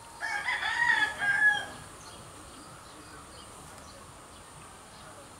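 A rooster crows once, a call about a second and a half long that ends on a held higher note.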